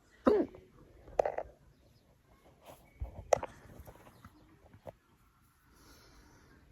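A person hiccuping: three short, sharp hiccups within the first few seconds, followed by a few fainter catches.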